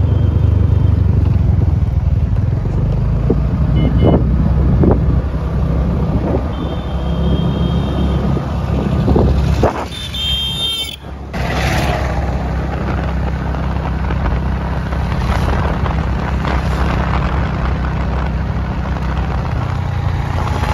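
Riding on a scooter: heavy wind rumble on the microphone with the scooter's engine and road noise, dipping briefly about ten seconds in.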